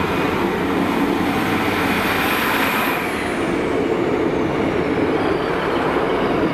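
Class 153 diesel multiple unit passing close by: its underfloor Cummins diesel engine running, with wheels rolling on the rails. A thin high whine falls steadily in pitch from about three seconds in as the unit goes by.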